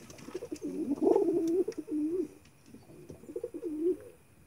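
Domestic pigeon cooing in two bouts of low, wavering coos: a longer one in the first half and a shorter one about three seconds in.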